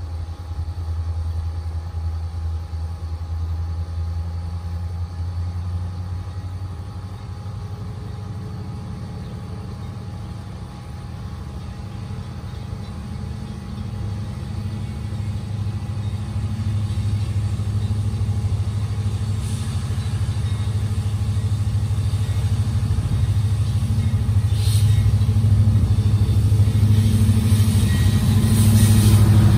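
Low diesel rumble of an approaching freight train led by an EMD SD70ACe locomotive, growing steadily louder over the second half.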